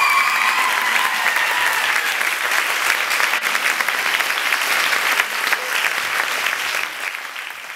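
Audience and cast applauding: dense, steady clapping that fades out near the end.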